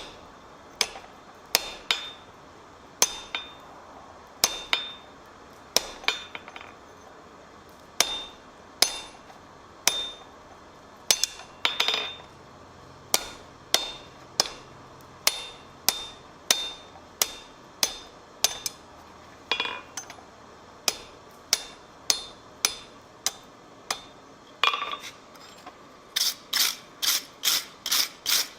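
Blacksmith's hammer forging steel on an anvil: sharp blows about once a second, many with a ringing tone. Near the end the blows turn into a quick, even run of lighter strikes, about four a second.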